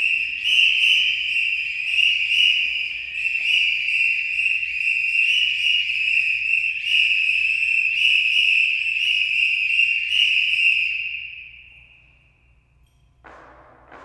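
Police whistle held in one long high-pitched blast that swells and eases about once a second, then fades out. A few sharp knocks follow near the end.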